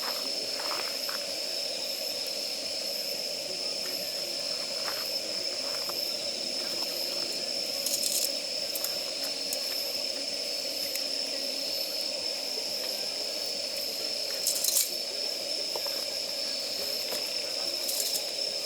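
Wood fire of damp firewood burning, with a steady hiss and a thin high whine throughout, scattered small ticks and three louder crackling pops.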